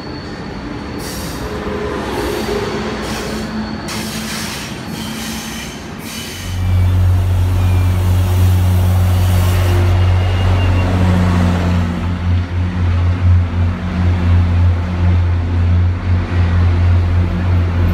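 An Amtrak Acela trainset rolling past at first, with steady rail noise and a few sharp clacks from the wheels. About six seconds in, an MBTA diesel locomotive's engine takes over with a loud, steady low drone that carries on as its commuter coaches pass.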